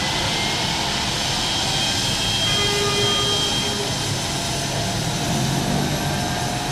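Twin turbine engines of an MD 902 Explorer air ambulance helicopter running on the ground before take-off: a steady turbine whine over a dense rush of noise, with some of its tones edging up in pitch near the end.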